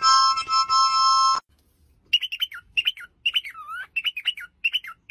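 A small harmonica sounds a steady chord, then stops about a second and a half in. After a short gap a cockatiel whistles a chirpy phrase like "dipidipidoo" about six times, each phrase dipping in pitch.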